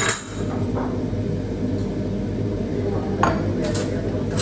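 Dishes and cutlery clinking at a meal: a sharp clink at the start, a fainter one about a second in, and a few more near three seconds, over a steady low hum.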